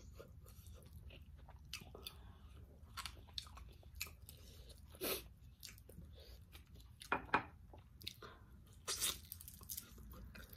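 Close-up mouth sounds of someone eating grilled fish: chewing with wet lip smacks, a string of short sharp smacks, the loudest about five, seven and nine seconds in.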